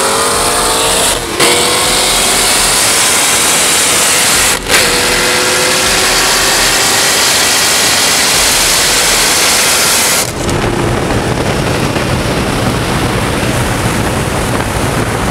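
Sports cars accelerating hard in a roll race: an engine revs up under heavy wind and road noise, with two quick gear shifts early on where it drops briefly and climbs again. About ten seconds in, the sound cuts abruptly to a lower, steadier car rumble.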